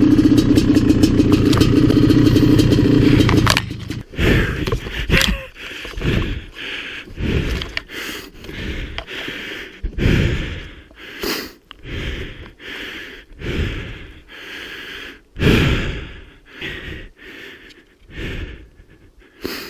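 Maico 700's two-stroke single-cylinder engine running, then cutting out suddenly about three and a half seconds in. After it stops, a rider's hard breathing follows in short gasps about once a second.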